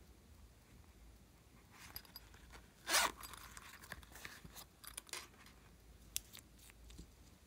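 Zipper of a silicone pencil case being pulled open. A softer scrape comes just before 2 s, then one quick, loud zip about 3 s in. After that come a few light clicks and rustles as a marker pen is taken out and handled.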